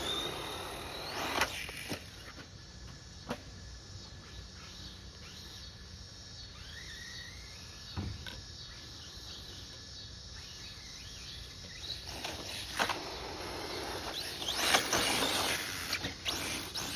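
Outdoor background noise with a few sharp clicks and several swells of rustling noise, the loudest about three-quarters of the way through.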